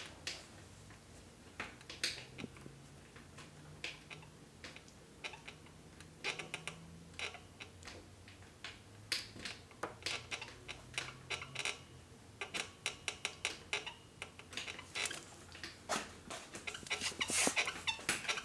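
Small metal parts and a tool clicking and tapping against the mechanism of a Singer 348 sewing machine while the bottom rocker stud is worked into the needle bar rocker arm. The taps are scattered, coming thicker in the second half, over a faint low hum.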